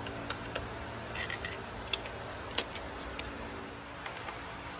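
Scattered light metallic clicks and taps of a screwdriver working at a connecting-rod bearing cap on a Chevy 454 big-block crankshaft, over a steady low hum.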